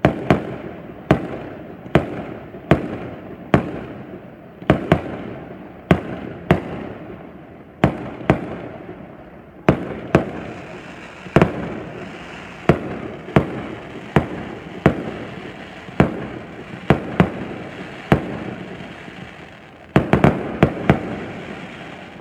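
Fireworks display: a steady run of loud bangs about once a second, each trailing off before the next, with a quick cluster of several bangs near the end.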